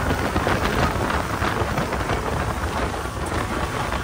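Powerboat running at speed: a steady engine drone under loud rushing water and spray along the hull, with wind buffeting the microphone.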